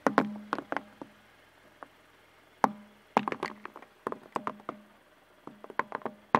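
A car tyre rolling over and crushing a row of hard, chalky balls: clusters of sharp cracks and crunching snaps as each ball gives way, one burst after another.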